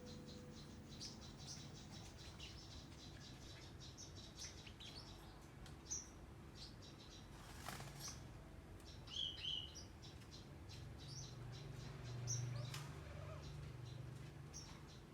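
Faint birds chirping: scattered short, high chirps several times throughout, over a low steady hum.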